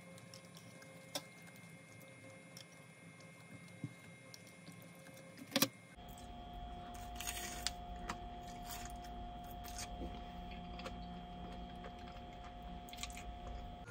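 Quiet room tone with a faint steady hum and a few small sharp clicks. The background changes abruptly about six seconds in.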